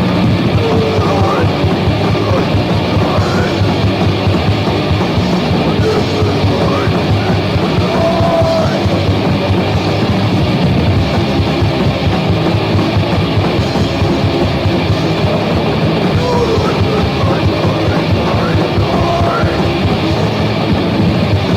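Crust punk band playing hard and fast in a rough demo recording: continuous dense rock music with no break.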